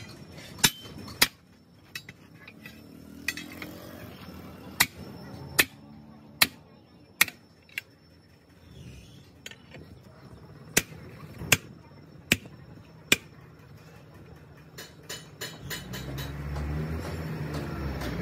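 A hammer striking steel as the split lock ring is driven onto a truck wheel rim: sharp metallic blows about once a second, a dozen or so in all, with a pause about halfway through. Near the end a vehicle engine rises in the background.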